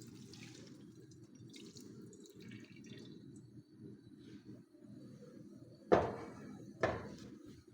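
Two sharp clanks of metal cookware, about six and seven seconds in, each ringing briefly, over a faint steady low noise.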